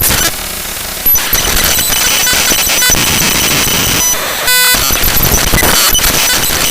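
Raw binary data of the Google Drive DLL file drivefsext.dll played back as audio: loud, harsh digital static and buzzing. The first second is quieter and duller, and a brief patch of steady stacked tones comes about four and a half seconds in.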